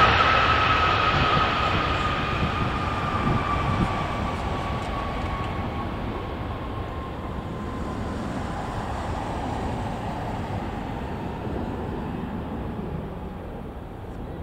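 Airbus A320 airliner's jet engines on the landing rollout: a roar with a slowly falling whine as the engines spool down, fading steadily as the aircraft moves away down the runway.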